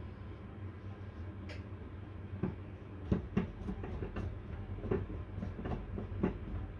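Irregular light metallic clicks and taps, about ten of them starting about a second and a half in, from small brass and steel parts of a model wobbler steam engine being handled and fitted together by hand, over a steady low hum.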